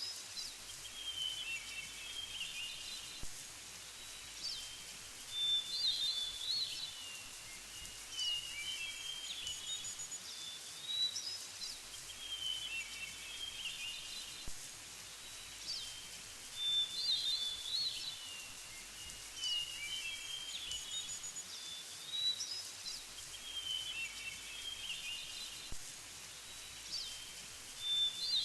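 A bird singing a short warbled phrase over and over, about every two to four seconds, over a steady background hiss.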